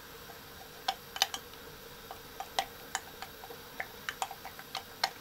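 A utensil clicking against a bowl while stirring sour cream and flour into a thick paste: irregular light clicks, about two or three a second, starting about a second in.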